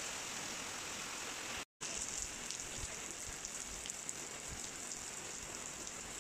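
Steady hiss of tropical monsoon rain. It breaks off for a moment a little under two seconds in, then goes on with many small separate drop hits heard over the hiss.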